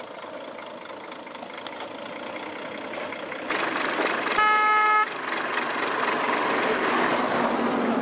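Toyota pickup truck driving up a dirt road, its engine and tyre noise growing louder as it approaches, with one short horn honk about four and a half seconds in.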